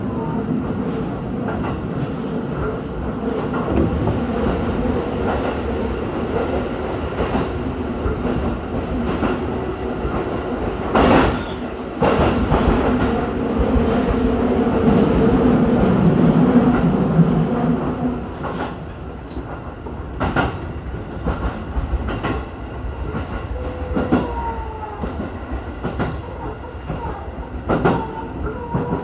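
Electric commuter train running along the line: a steady rumble with a constant motor hum, louder for several seconds in the middle, and wheels clacking over rail joints now and then.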